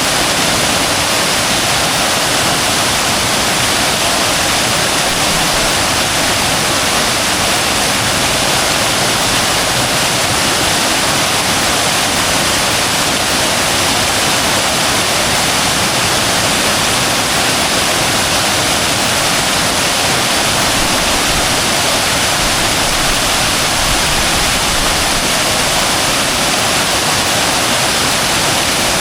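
A waterfall: a loud, steady rush of falling water that does not change.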